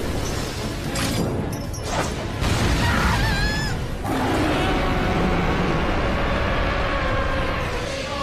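Anime battle sound effects over dramatic music: a loud, dense rumbling energy noise, a wavering high screech about three seconds in, and sustained musical tones from about four seconds.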